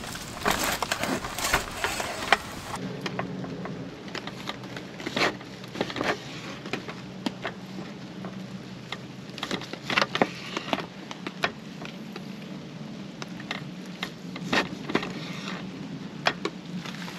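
Knife cutting through the charred crust of a thick tomahawk steak on a wooden cutting board for the first few seconds, then a wood campfire crackling with scattered sharp pops.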